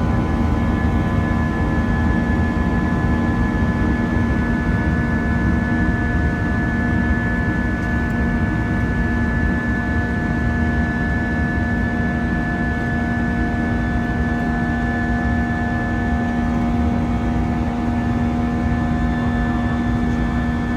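Airbus A319's jet engines heard from inside the passenger cabin at steady climb power: a loud, even rumble with several steady whining tones over it.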